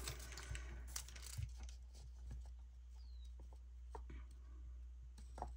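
Faint rustling and a few small ticks of a paper sticker being handled and pressed onto a planner page.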